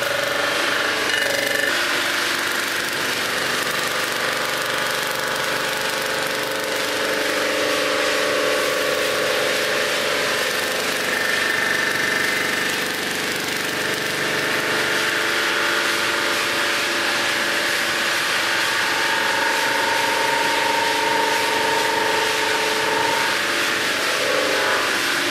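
Sunnen HBS-1300 resurfacing machine running steadily, its rotating cutter taking material off the deck face of a weld-repaired Volvo 240 aluminum cylinder head as the table feeds the head under it. It is a continuous machining noise with several steady whining tones that shift a little as the cut goes on.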